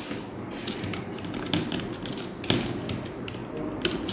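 Computer keyboard keys being typed: a run of uneven light clicks, about three a second, with a few strokes louder than the rest.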